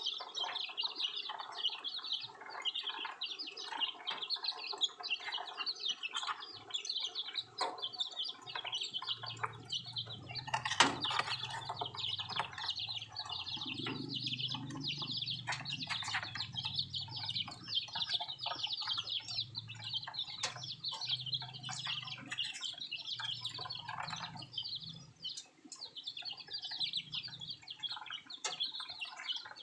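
Many baby birds peeping continuously in a dense, high-pitched chorus of short chirps. A low hum runs underneath through the middle, and a single sharp knock sounds about eleven seconds in.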